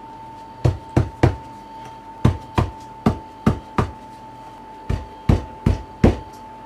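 A flat spatula tapping on a loose biscuit-crumb tart base to pack it down: about a dozen sharp taps in three quick runs.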